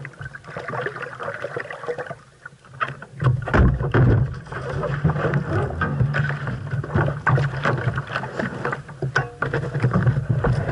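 A 470 sailing dinghy under way in a fresh breeze: water rushing and slapping along the hull, with many short knocks and clicks from the boat. It gets clearly louder from about three seconds in.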